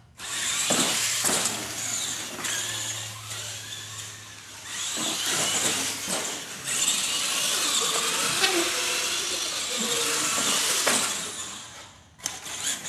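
Electric radio-controlled monster truck driving on a concrete floor: a loud whine of motor and gears with tyre noise, its pitch rising and falling with the throttle. It stops about twelve seconds in, with a few sharp knocks near the end.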